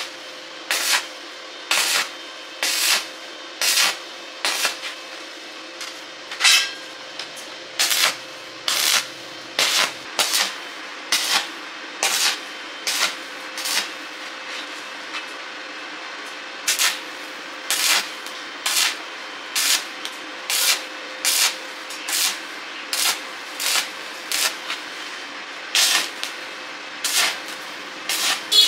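Repeated hand rubbing or scraping strokes on a surface, about one a second, each short and sharp, over a steady low hum. The strokes pause for a few seconds a little past the middle, then carry on.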